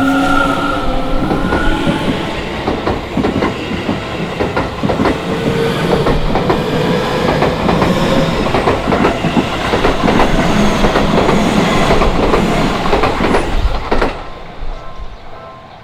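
Seibu Ikebukuro Line electric train passing close by over a level crossing, its wheels clattering over the rail joints. The sound is loud for about fourteen seconds, then drops away as the train clears the crossing.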